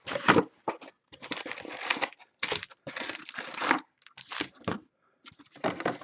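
Crinkling and tearing of plastic wrap and foil trading card packs in irregular bursts as a sealed hobby box is opened and its packs pulled out and stacked.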